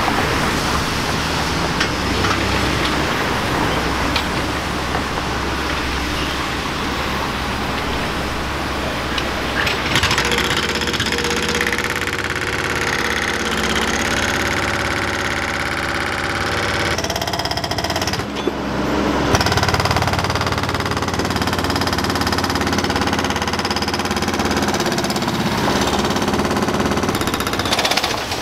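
Hydraulic breaker on a John Deere backhoe rapidly hammering concrete pavement, a steady fast pounding over the backhoe's diesel engine.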